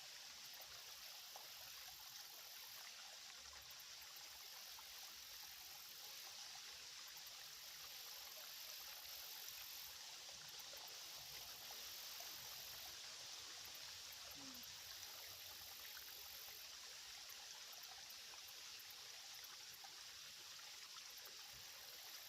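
Faint, steady rush of a small shallow creek's water flowing and trickling.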